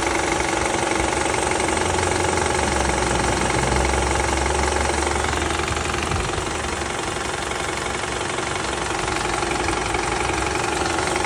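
Toyota 2AR-FE 2.5-litre four-cylinder engine idling in Drive with the air conditioning on, with a fast, steady rattle from the timing chain. A deeper hum swells about two seconds in and eases off about six seconds in.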